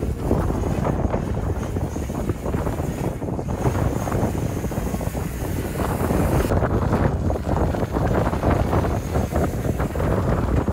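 Stiff sea breeze buffeting the microphone aboard a sailing boat: a heavy, gusting rumble that rises and falls. About six and a half seconds in it turns suddenly brighter and hissier.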